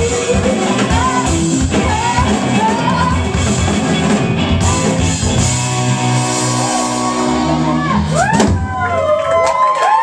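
Live horn band with saxophones, electric guitars, drums and a woman singing, closing the song on a long held chord. About eight seconds in the music stops and the audience cheers and whoops.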